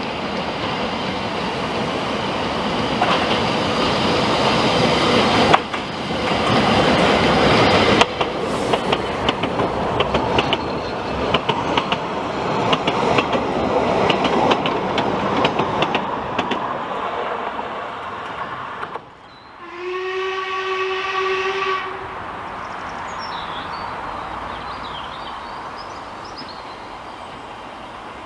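Ffestiniog Railway narrow-gauge train running, its wheels clicking over the rail joints. About twenty seconds in, the train sounds one steady blast of about two seconds.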